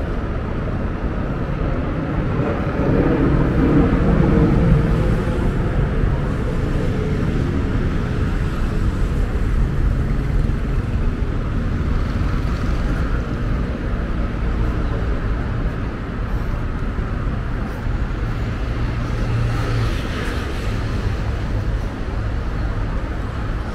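Steady road traffic on a busy city avenue heard from the sidewalk, a continuous low rumble of passing cars and motorcycles. One vehicle passes louder about three to five seconds in.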